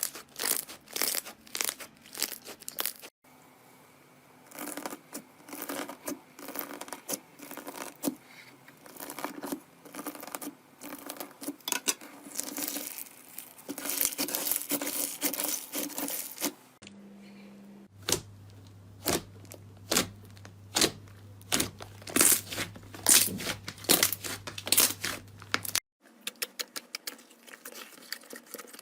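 Slime being squeezed, stretched and poked by hand, giving runs of sharp crackling clicks and pops. It comes in several short clips with abrupt cuts between them.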